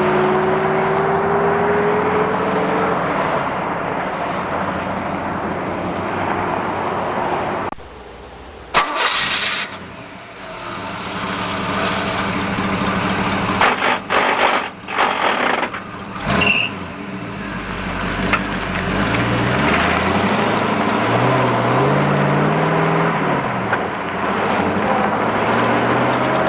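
Vehicle engine running with gears grinding and clunking as they are shifted. The revs rise and fall. The sound drops away about a third of the way in, then comes a sharp knock and a run of clunks, and the engine picks up again with rising revs.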